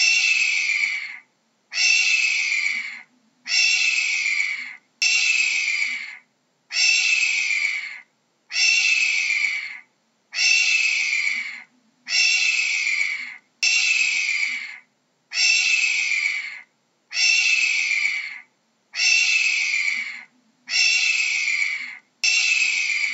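A hawk screaming over and over: a hoarse, slightly downward-sliding call about a second long, repeated roughly every second and a half to two seconds with brief silences between.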